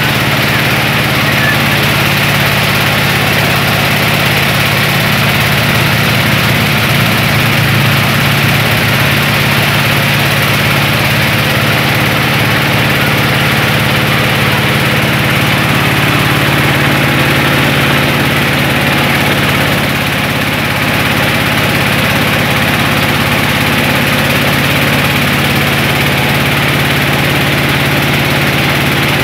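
Engine of a mobile rice-milling machine running steadily while it hulls paddy into rice, a continuous loud mechanical hum with a slight dip about two-thirds of the way through.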